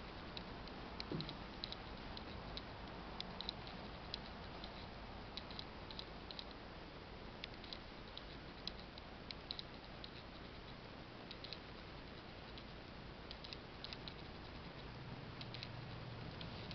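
Quiet steady room hiss with scattered faint light clicks, a few a second at uneven spacing; a low hum comes in near the end.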